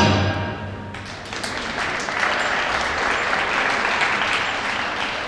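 Skating program music ends and dies away in the first second, then a small audience in an ice rink applauds, a steady patter of clapping.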